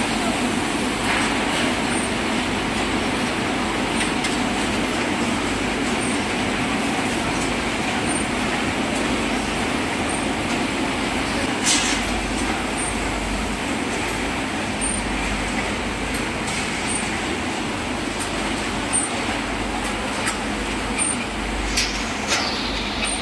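Steady mechanical din of factory machinery, with a few sharp knocks: the loudest about halfway through, several more near the end.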